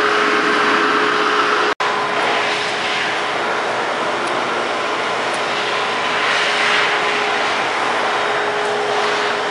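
Steady whir of machinery with a constant hum; the sound cuts out for an instant about two seconds in.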